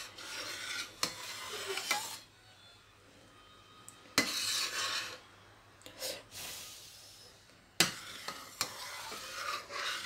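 A slotted spatula stirring and scraping thickening milk around a stainless steel pan, in several spells with a few sharp knocks against the pan. The milk is being boiled down to khoya and is close to drying out, so it is kept stirred.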